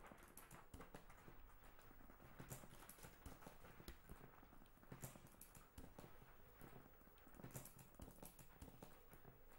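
Near silence with faint, irregular clicking and tapping, a sharper click standing out about every two and a half seconds.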